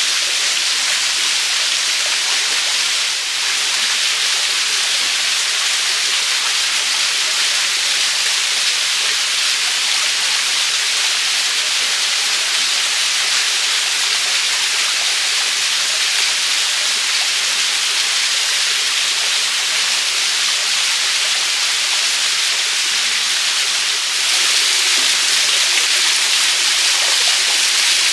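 Small waterfall pouring over rocks into a pool, a steady rushing hiss of falling water that grows a little louder near the end.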